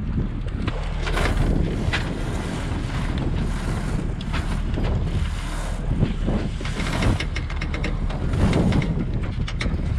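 Wind buffeting the microphone, with repeated short clicks from a mast winch as the mainsail is winched up, the clicks thickest in the second half.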